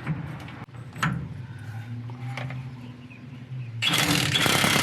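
A couple of sharp knocks, then a loud burst of about a second and a half from a power tool spinning off a nut on the rear axle's pinion.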